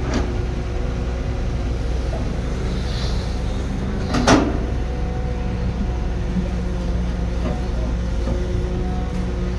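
Heavy construction machine's engine running steadily with a low rumble, with one sharp clank about four seconds in.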